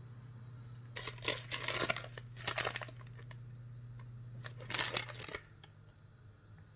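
Crinkly plastic bag of dried Sichuan peppercorns being handled and shaken out into a hand, in several short spells of crinkling. A steady low hum runs underneath and cuts off about five seconds in.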